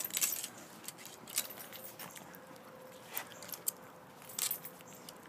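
Metal fittings and buckles of a guide dog's harness jingling and clicking a handful of times as the harness is handled on the dog.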